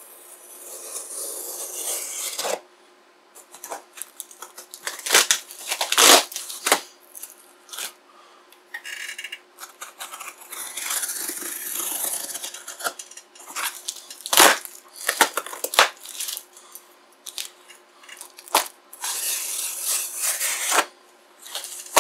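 Packing tape and cardboard being slit with a box cutter and ripped open: several long ripping, scraping stretches with sharp knocks and clicks in between.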